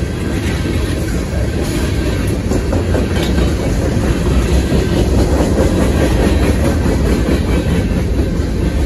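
Freight cars (tank cars, a boxcar and covered hoppers) rolling past at speed: a steady low rumble with the clickety-clack of steel wheels over the rail joints.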